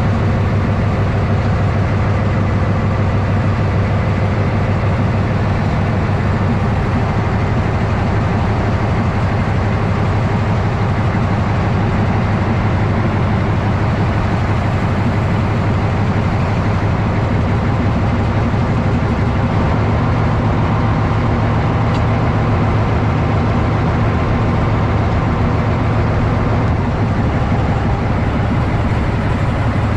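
Narrow-gauge TU7A diesel locomotive's engine running with a steady low drone.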